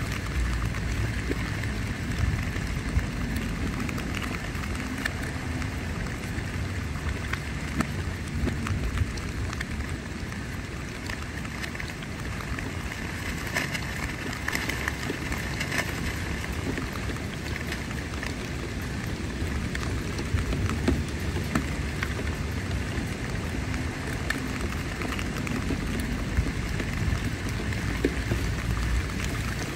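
Steady rain falling on a tent's fabric, many separate drops ticking over a continuous wash of rain, with a low rumble of wind underneath.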